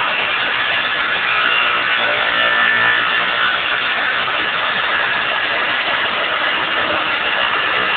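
A motor running steadily, a loud even noise. A faint pitched hum rises out of it for a second or so about two seconds in.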